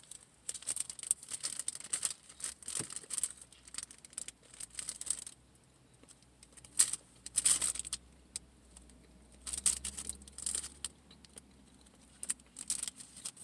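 Plastic food packaging being handled, crinkling and tearing in short, irregular crackles with brief pauses between.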